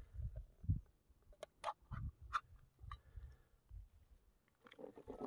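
Ring-pull lid of a metal tin can being peeled open: a few faint, sharp clicks of the lid tearing through the middle, with low bumps from the can being handled.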